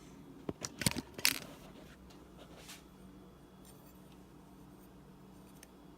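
A metal spoon clicking a few times against a dish as it cuts into soft steamed broccoli, in the first second or so. Then only faint room tone with a steady low hum.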